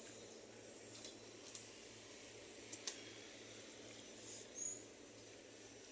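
Quiet outdoor background with a steady low hum, a few faint clicks, and one short high chirp about four and a half seconds in.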